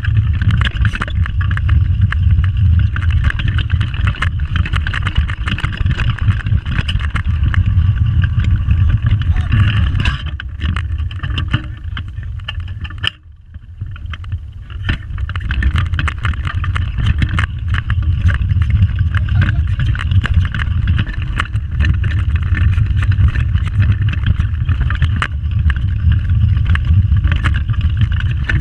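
Pedal go-kart rolling fast over the track surface: a steady rumble with rattling from the kart, and wind buffeting the kart-mounted microphone. It dies down briefly about halfway through, then picks up again.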